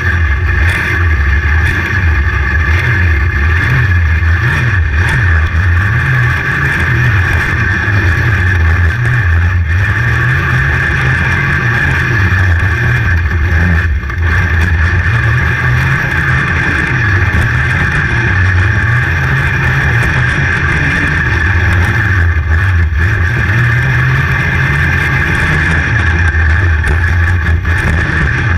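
500cc open-class outlaw kart engine at racing speed, heard onboard, its revs rising and falling as it accelerates down the straights and lifts into the turns.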